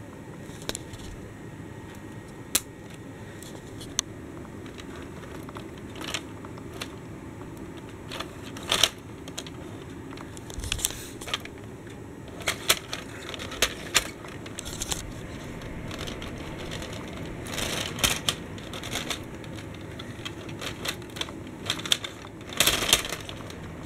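Plastic toy train on Lego wheels being pushed along plastic Lego track, a low steady rolling rumble with irregular sharp plastic clicks and clacks, which come more often in the second half.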